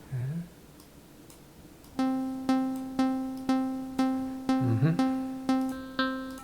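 Software synthesizer in VCV Rack playing a triggered pluck-like note, the same pitch repeated on every clock beat about twice a second (a 124 BPM clock), each note starting sharply and decaying, beginning about two seconds in. A short low swooping synth tone sounds just after the start and again midway.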